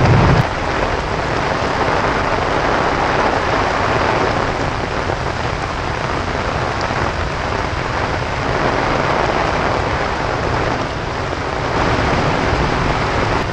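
Torrential tropical rain falling steadily, a dense continuous hiss of downpour hitting the umbrella overhead and the wet pavement.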